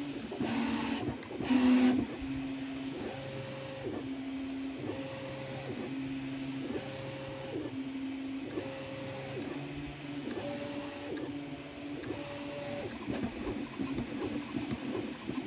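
Original Prusa Mini 3D printer printing, its stepper motors whining in two alternating pitches, a low one and one about an octave higher, switching roughly once a second as the print head moves back and forth. A louder, noisier rattle comes about a second and a half in.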